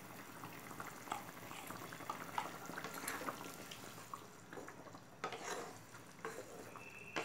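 Wooden spatula stirring a simmering fish-and-broccoli curry in a nonstick pan: wet sloshing and soft scrapes, with a few louder knocks against the pan.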